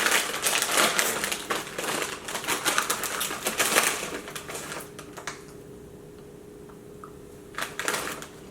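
Crinkly snack bag of popcorn being handled, a dense run of crisp crackling that dies down about five seconds in, with a few more crackles near the end. A faint steady hum is heard underneath once it quiets.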